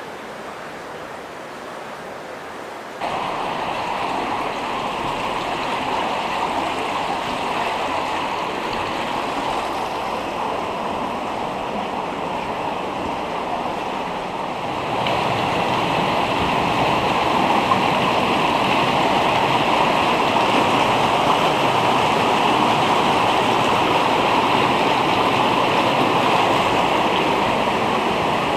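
Steady rushing of running water, a constant noisy wash that jumps louder abruptly about 3 seconds in and again about 15 seconds in.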